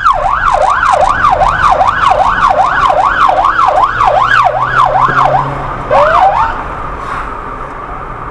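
Emergency vehicle siren on a fast yelp, sweeping up and down about three times a second. Near the end it gives one last upward whoop and cuts off, leaving a fading tone over vehicle noise.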